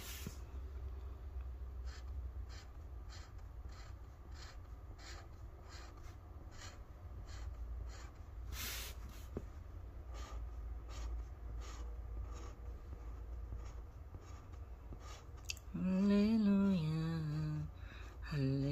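A series of short pen strokes on a board, over a low steady hum. Near the end a woman hums a phrase of a hymn.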